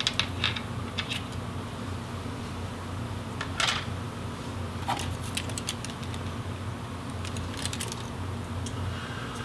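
Scattered small clicks and taps from the plastic parts of a disassembled Oculus Quest 1 headset being handled, with one sharper tap a few seconds in. A steady low hum runs underneath.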